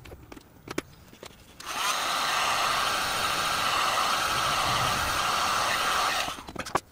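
Handheld electric hot air gun switched on and blowing steadily for about four and a half seconds, then switched off, drying a fresh coat of paint. A few light knocks of handling come before it starts and after it stops.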